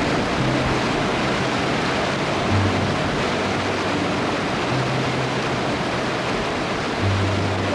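Mountain stream rushing over rocks, a steady full noise, with background music's low held bass notes coming and going over it.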